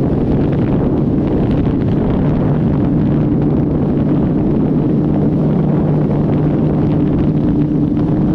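Wind rushing over the microphone at riding speed on a Suzuki Hayabusa, with the stock-exhaust inline-four's steady low hum at constant cruise just audible underneath.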